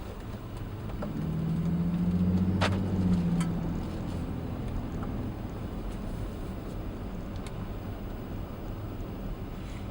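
Ford Raptor's twin-turbo 3.5-litre EcoBoost V6 pulling under heavy throttle: the engine note swells loud for a couple of seconds, then eases back to steady cruising. There is a sharp click in the middle of the pull.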